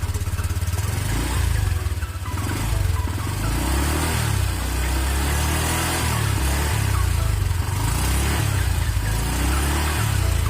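Honda Vario 125 scooter running, with a heavy low rumble under a hissy upper layer. No 'ngorok' growl is heard from the rear: double-sided tape has been wedged in to stop the vibrating part.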